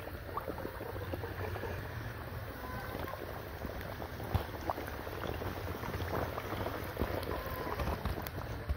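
Breaded chicken leg pieces deep-frying in hot oil: a steady sizzle full of many small crackling pops.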